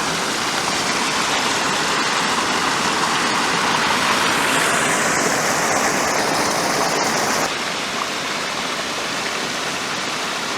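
Creek water pouring over a low-water bridge and low falls: a steady rush that swells a little brighter in the middle and drops off suddenly about seven and a half seconds in.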